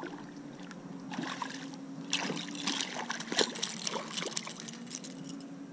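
A hooked trout thrashing and splashing at the water's surface on the line, a run of sharp splashes from about two seconds in, over a steady low hum.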